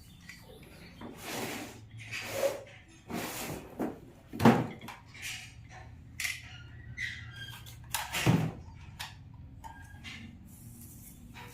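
Toy train track pieces being handled and pressed together: irregular clicks, knocks and rustles, with two louder knocks, one near the middle and one about two-thirds of the way through.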